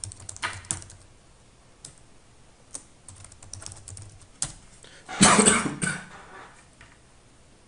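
Computer keyboard typing: scattered keystrokes entering a password, with a louder burst of key clatter about five seconds in.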